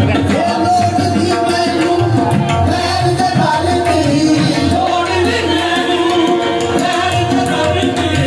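Live qawwali music: singing voices over tabla drumming and sustained harmonium tones, played loud through a sound system.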